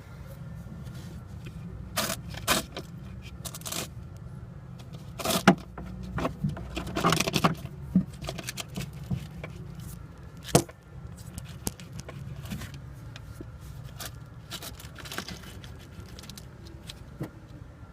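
Rear shock absorbers of a Lada Kalina creaking, in irregular short squeaks and clicks, the loudest of them around the middle, over a steady low hum.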